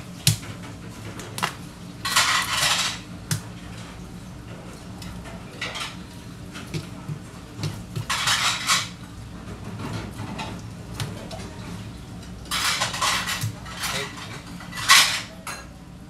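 Long sashimi knife working through a flounder, rasping along its bones and the plastic cutting board in several short strokes a few seconds apart, with a few light knocks of the blade on the board.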